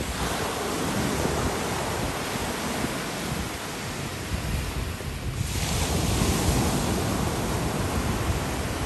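Small surf waves breaking and washing up a sandy beach, swelling once at the start and again about halfway through, with wind buffeting the microphone.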